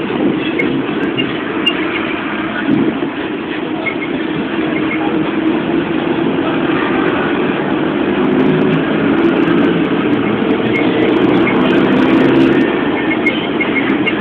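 City bus engine running and road noise heard from inside the moving bus, with the engine note shifting and growing a little louder in the second half.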